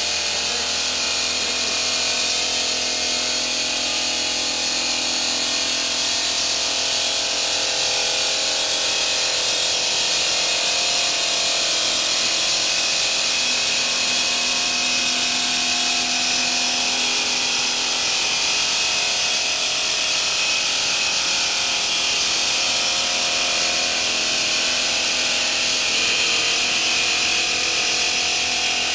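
Bridge saw's water-cooled circular cutting disc running steadily through a stone slab: a continuous high grinding hiss of the cut over a steady motor hum.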